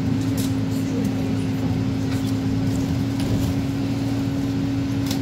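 City bus heard from inside the passenger cabin, its drive running with a steady drone and one even humming tone, and a few faint rattles from the body.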